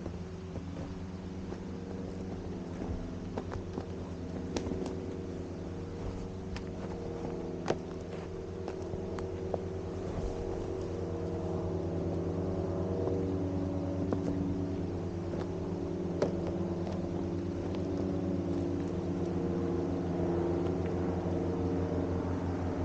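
Steady engine drone with an even hum that slowly grows louder, with scattered sharp clicks over it.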